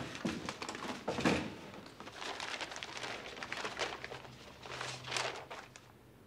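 Paper rustling and crinkling, with a few light knocks, as a folded sheet is handled on a desk. The loudest rustle comes about a second in and another near the five-second mark.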